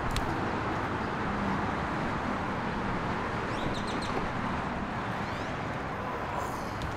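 Steady outdoor traffic noise around a roadside parking lot, with a few short bird chirps about halfway through.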